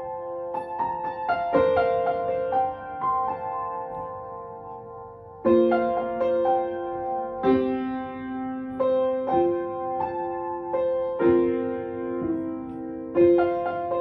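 Upright piano played solo: a slow melody of struck, held notes in the middle register. It grows softer about four to five seconds in, then comes back louder with a new phrase about five and a half seconds in.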